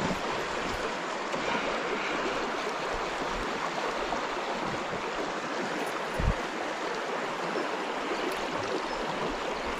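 Shallow river current rushing steadily over a stony bed, with a single dull thump about six seconds in.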